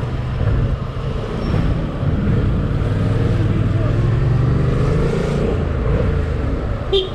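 Yamaha MT-07's parallel-twin engine running steadily at low road speed, a continuous low drone. A short sharp sound cuts in near the end.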